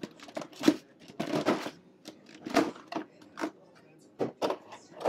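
Clear plastic blister tray and plastic wrapping crinkling and clicking as they are handled, an irregular run of short crackles.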